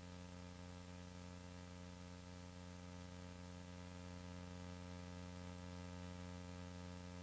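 Faint, steady electrical hum with a constant hiss, unchanging throughout; no game or crowd sounds come through.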